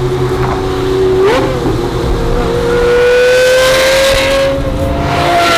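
Lamborghini supercar engine revving and accelerating hard, its pitch stepping up and then rising steadily over about three seconds, heard from inside the car.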